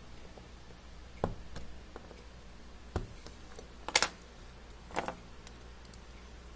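Sharp plastic clicks as wires are punched down into a Cat6 keystone jack with a punch-down tool and the jack is handled: four clicks spaced about a second apart, the loudest a double click about four seconds in.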